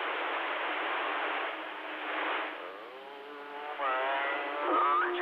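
CB radio receiver hiss on an open channel while the operator waits for a reply. About halfway through, a garbled, warbling transmission comes through, with pitch gliding up and down, like a distant station's voice breaking up.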